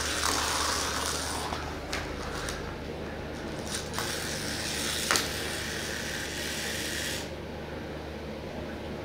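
A cat playing with a toy mouse: a few sharp clicks and taps over a steady whirring, mechanical-sounding hum, whose higher hiss cuts off suddenly about seven seconds in.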